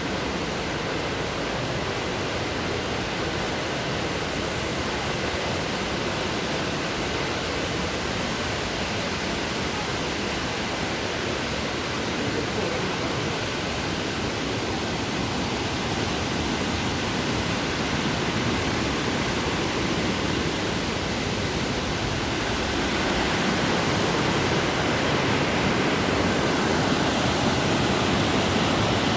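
Steady rush of water from a stream or waterfall, growing a little louder about three quarters of the way through.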